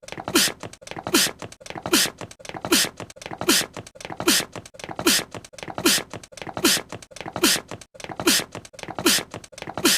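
A cartoon character's short, high sneeze, a voiced catch falling in pitch and then a sharp hissy burst, looped over and over about every three-quarters of a second.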